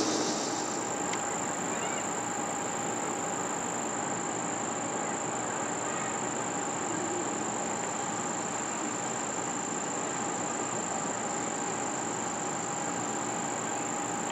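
Steady outdoor background ambience: an even hiss with a thin, high-pitched steady whine and a fainter steady hum beneath it, unchanging throughout.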